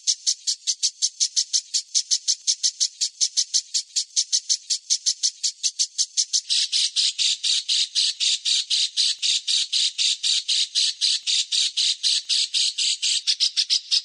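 A songbird's harsh, rapid chatter: a fast, even string of scratchy notes, about five or six a second, of the tight 'tembakan' kind used in songbird-tutoring recordings. A little past halfway the notes turn fuller and reach lower.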